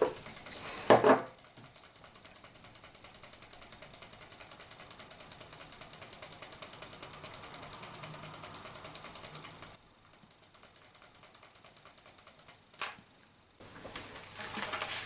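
Microswitch under a computer mouse's left button clicked rapidly and evenly, about six clicks a second, to work DeoxIT contact cleaner onto its intermittent contacts. There is a louder knock about a second in. The clicking stops near ten seconds in and fainter clicks follow, then a rubbing sound near the end.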